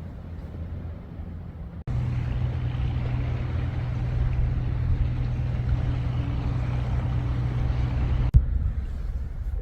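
A steady engine drone with a low hum, starting and stopping abruptly at cuts about two seconds in and just after eight seconds, between quieter stretches of low rumble.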